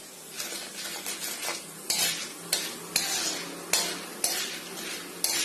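Popcorn kernels in hot oil in a pan, sizzling while they are stirred or shaken, rattling and scraping against the metal in even strokes about twice a second. No kernels are popping yet.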